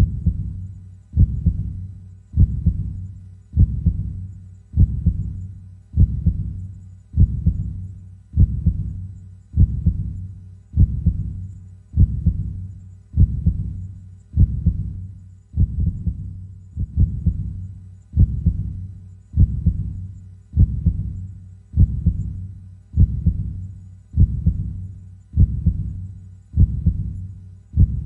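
Heartbeat sound: a steady, slow lub-dub, each beat a pair of deep thuds, repeating about once every 1.2 seconds (around 50 beats a minute).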